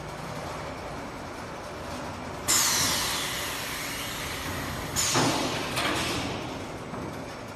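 Automatic glass-bagging machine's pneumatics releasing compressed air. One long hiss starts suddenly about two and a half seconds in and slowly fades, then two shorter hisses come close together near the five-second mark, the first of them the loudest.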